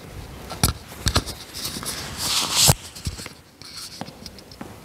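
Rustling and shuffling with a few sharp knocks and taps from people getting up and moving about, including footsteps on a hard floor; the loudest is a burst of rustling with a knock about two and a half seconds in.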